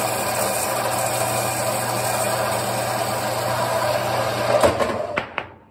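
Horizontal metal-cutting band saw running, its blade cutting through a turned metal part. The motor starts suddenly and stops about five seconds in.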